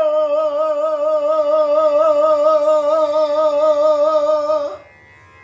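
A man's voice holding the long final note of a Bengali folk song, with an even vibrato. The note cuts off about four and a half seconds in.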